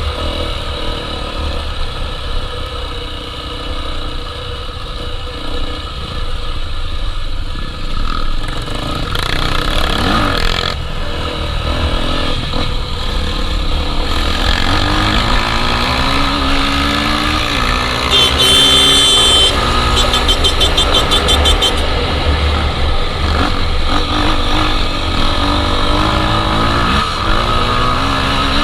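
Honda Tornado 250 single-cylinder four-stroke trail bike engine running under riding, its pitch rising and falling as the throttle is opened and closed, over a steady low rumble.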